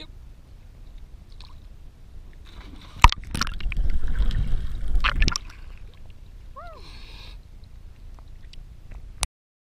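A person jumping feet-first off a small sailboat into the sea: a sharp splash about three seconds in, then a couple of seconds of rushing, bubbling water heard with the camera dipped under the surface. Water laps and washes at the surface around it.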